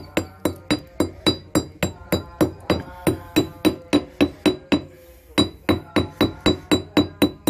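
Hammer striking a stone block about three times a second, each blow sharp with a metallic ring and knocking small chips off the sawn face to give it a chiselled texture. The blows pause briefly just under five seconds in, then carry on.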